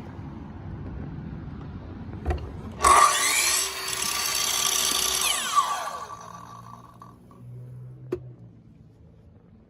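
Hitachi C8FSH 216 mm sliding compound miter saw switched on: it starts suddenly and runs loudly at full speed for a few seconds, then is switched off and whines down in pitch as the blade coasts to a stop. There is a sharp click just before it starts and another after it has stopped.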